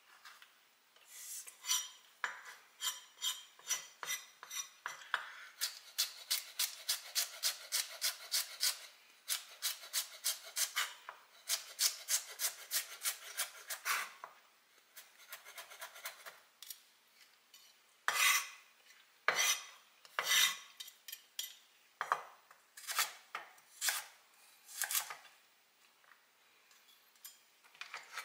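Chef's knife dicing carrot on a wooden cutting board: a quick, even run of chops, about three a second, then slower separate knife strokes later on.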